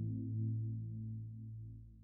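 Background music: sustained low synthesizer-like tones with a slow pulse, fading out.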